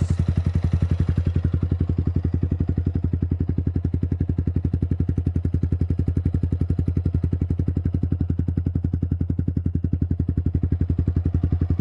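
Yamaha Sniper 155 VVA's single-cylinder engine idling steadily through a Villain CB1 carbon aftermarket exhaust with heat guard, a low, even pulsing note with no revving.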